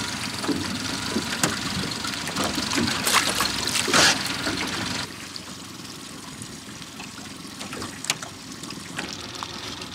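Lake water splashing and trickling as a lake trout is lowered over a boat's side and released, with a loud splash about four seconds in. About five seconds in the sound drops suddenly to a fainter background with a few light knocks.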